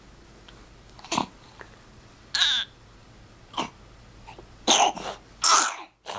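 Baby coughing: a string of about five short coughs, the last two the loudest, which is quite the cough.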